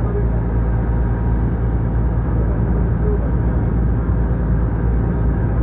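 A river ferry's engine running steadily: a constant low drone, heard from on board.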